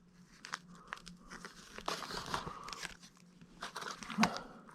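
Packaging crinkling and rustling, with light clicks, as small items are handled and unwrapped; the loudest rustle comes near the end.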